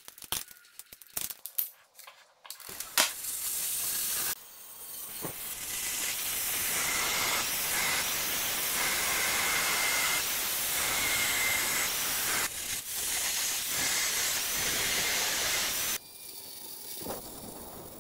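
Angle grinder with a diamond disc cutting a stone countertop: a loud, steady grinding noise with a faint whine running for about twelve seconds. It stops about two seconds before the end. Before it, a few sharp clicks and knocks as the tool is handled.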